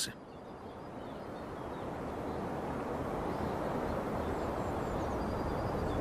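Steady rushing outdoor ambience that swells gradually, with a few faint high bird chirps.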